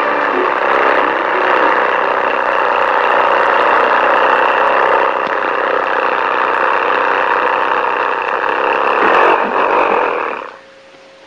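Cartoon sound effect of an old open-top jalopy's engine running as the car drives along, a steady, dense noise that cuts off suddenly about ten and a half seconds in.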